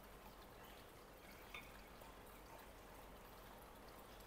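Near silence: room tone, with one faint tick about a second and a half in.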